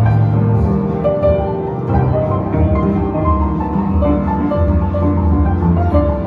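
Upright piano being played: a melody of separate held notes in the middle register over repeated bass notes.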